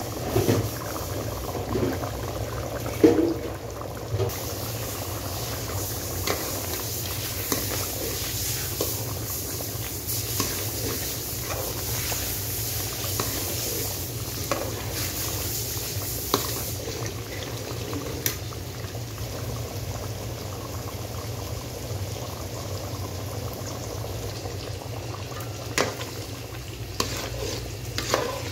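Thick dal bubbling at the boil in a pot, with a ladle stirring it and a few sharp knocks against the pot, the loudest about three seconds in. A steady low hum runs underneath.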